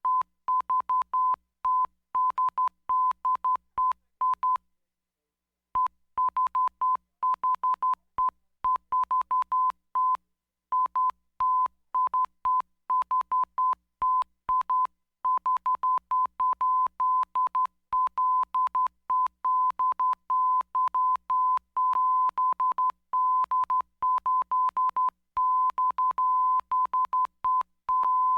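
Morse code telegraph signal: a single high-pitched beep tone keyed on and off in quick runs of short and long beeps. The keying stops for about a second some four and a half seconds in, then carries on.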